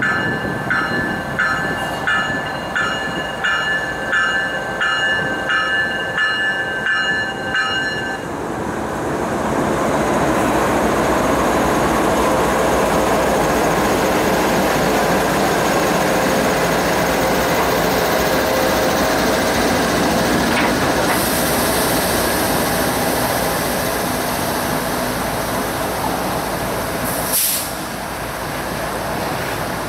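Railroad grade-crossing bell dinging about one and a half times a second, stopping about eight seconds in. Then a Kansas City Southern freight train passes close by with a loud, steady rumble of wheels on the rails. A brief high-pitched hiss comes near the end.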